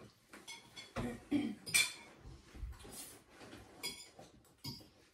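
Forks and cutlery clinking and scraping against plates as several people eat at a table, with a handful of scattered sharp clinks.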